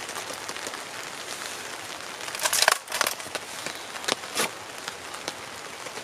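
Wood cracking and creaking as a froe is levered through a board to split off a wooden roof shingle, with several sharp cracks between about two and a half and four and a half seconds in, over a steady hiss of rain.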